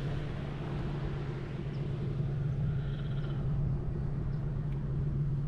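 Engine of a passing boat running steadily at a constant speed, a low, even drone.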